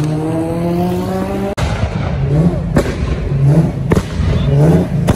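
A car engine revving with its pitch rising slowly. It cuts off abruptly about a second and a half in, then comes a run of short revs, about one a second, with sharp cracks between them.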